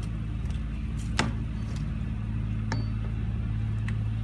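A steel pry bar clanking against a tractor wheel while prying off a stuck tyre: a sharp metal clank about a second in and a lighter ringing clink near three seconds, over a steady low hum.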